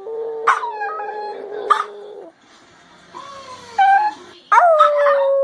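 Puppies crying: long, high whines, some sliding down in pitch, broken by short sharp yelps. After a brief lull partway through, a loud, drawn-out cry starts near the end.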